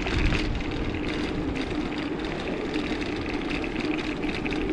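Wind rushing over the microphone while riding a bicycle, with a steady low hum underneath.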